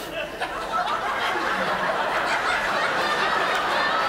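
A live theatre audience laughing, the laughter swelling about half a second in and then holding steady.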